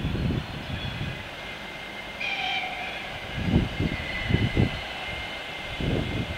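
Brief high-pitched whistle from an approaching ET2 electric train, about two seconds in. Wind buffets the microphone at the start and in a few gusts later.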